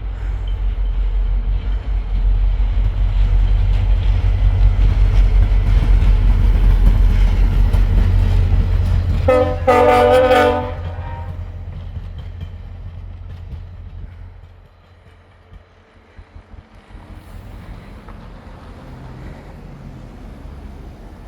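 VIA Rail passenger train led by an F40PH-2 diesel locomotive rumbling past close by. About nine seconds in it sounds one short blast on its multi-note air horn, lasting about a second and a half. The rumble then fades as the train draws away.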